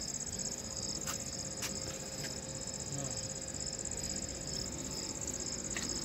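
Crickets chirping: a steady high-pitched trill with a second, pulsing note repeating two or three times a second. Two short clicks come about a second in.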